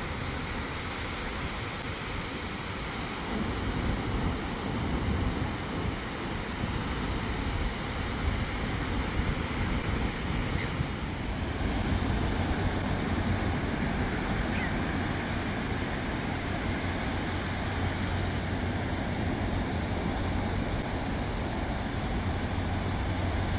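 Ocean surf breaking and washing up on a sandy beach: a steady rush of waves that grows a little louder about halfway through.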